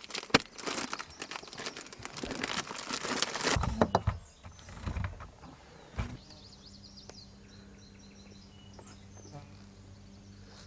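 Close crinkling and rustling noises for about four seconds, then a single knock. After that it is quiet, with small birds chirping and a faint steady low hum.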